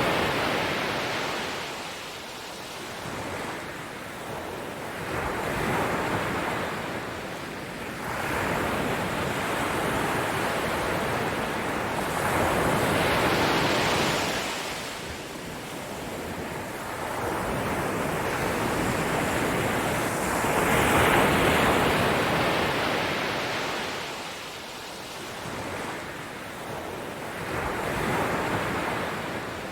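Waves washing in: a rushing noise that swells and fades in slow surges every six to eight seconds.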